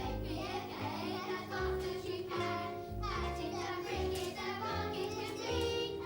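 Children's song: children singing over an instrumental backing with a bass line that moves note by note.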